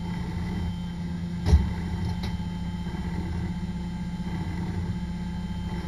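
Toyota Corolla race car's engine heard from inside the cabin, running at steady revs with no change in pitch. A sharp thump comes about a second and a half in, and a lighter click shortly after.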